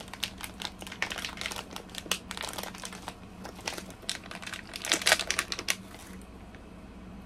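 Plastic film seal on a boxed mochi tray crinkling and crackling as it is picked and pulled at, a tough seal that won't come open; the densest crackling comes about five seconds in.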